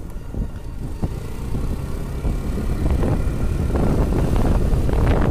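Motorcycle running at steady riding speed, heard from the rider's own camera as a continuous low rumble of engine and road noise.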